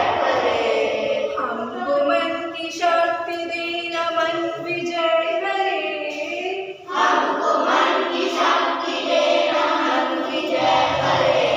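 A group of schoolchildren singing a prayer together, with long held notes; the singing breaks off briefly about seven seconds in and starts again.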